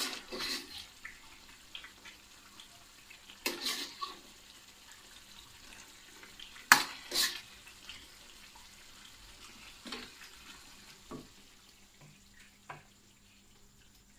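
A metal spoon scraping and knocking against a karahi as mutton chops in gravy are served from it onto a plate: a handful of short, uneven scrapes and clinks, the loudest about seven seconds in, growing sparser and fainter near the end.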